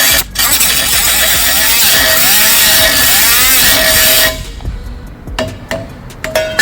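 Reciprocating saw (Sawzall) with a metal-cutting blade running through metal, a loud buzz with a wavering whine that drops out briefly just after the start and stops about four seconds in. A few sharp knocks and clicks follow.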